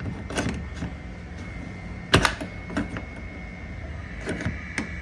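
A door's deadbolt and latch hardware being worked by hand: a few sharp clicks and knocks, the loudest about two seconds in, over a steady faint hum.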